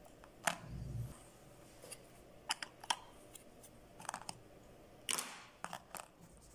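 Scattered light clicks and taps from handling an Arduino Uno circuit board and its battery leads on a workbench, with a soft thump about a second in and a brief rustle near the end.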